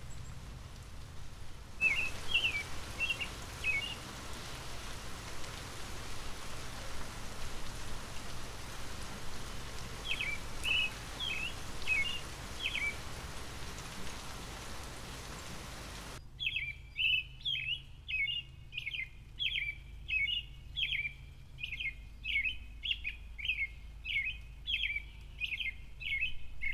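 Light rain falling as a steady hiss, with a bird giving short runs of chirps twice. About 16 seconds in the rain sound cuts off suddenly, and a bird chirps over and over, about two calls a second.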